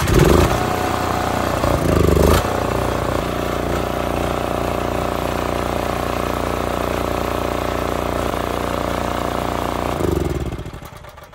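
Onan MicroLite 2800 RV generator running just after starting, surging unevenly for the first couple of seconds and then settling into a steady run. Near the end it shuts off and winds down. This is the warm-up run before an oil change.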